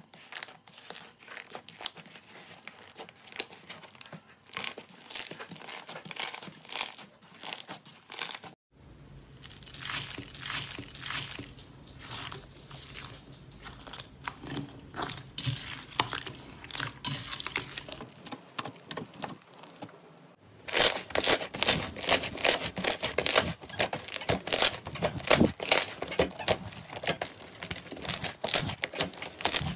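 Slime being squeezed and stretched by hand, giving dense crackling and popping. Three separate takes are cut together, with changes about 9 and 21 seconds in, and the last take is the loudest and busiest.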